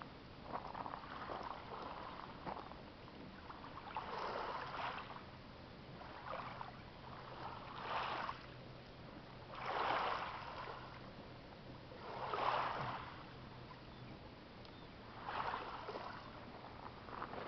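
Small waves lapping on a pebble shore, a soft wash that swells and fades every two to three seconds.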